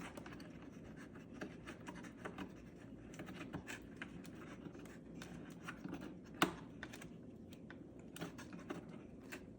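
Light scratching and scattered small clicks of hands fitting a small screw by hand into the plastic microswitch mount of a refrigerator ice-dispenser assembly, with one sharper click about six and a half seconds in.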